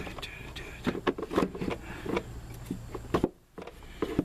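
Irregular clicks and knocks of car parts being handled and fitted back into place by hand, over a steady low hum that cuts off about three seconds in.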